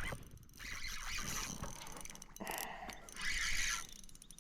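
Fishing reel being cranked in several short spells, a fast whirring, clicking wind as line is retrieved.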